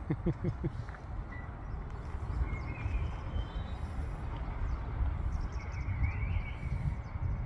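Outdoor ambience: a steady low rumbling noise with a few faint bird chirps.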